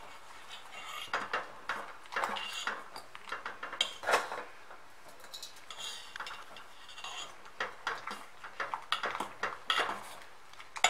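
Steel spoon clinking and scraping against a stainless steel pot and a steel plate as coarsely ground pearl millet is added by the spoonful to boiling water and stirred in, a series of irregular light clinks.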